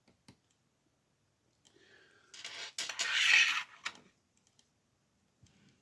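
Small metal lock-picking tools being handled: a few light clicks, then a clattering metal scrape with sharp clicks for about a second and a half, starting a little past two seconds in.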